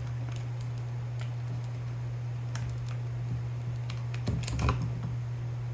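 Light, scattered clicks and taps of small plastic parts being handled and fitted while an airsoft electric gun's motor grip and wiring are put back together, with a short cluster of louder clicks about four and a half seconds in. A steady low hum runs underneath.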